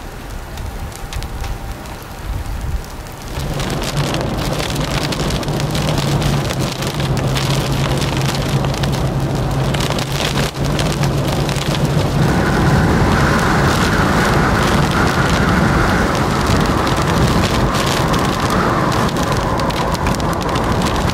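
Heavy rain and wind of a severe thunderstorm, with a dense patter of raindrops. About three seconds in it jumps louder and a steady low hum sets in. About halfway through, a steady higher whine joins it.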